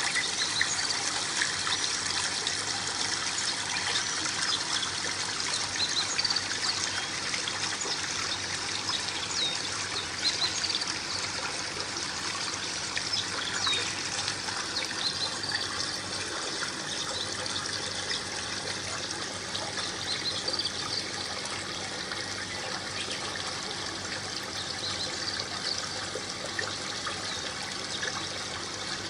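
Water trickling steadily down a small aquaterrarium waterfall into the tank, with little bubbling plinks scattered through it.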